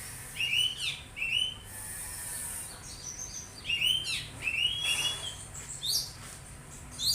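Songbird chirping and singing in quick clusters of short, high, hooked notes.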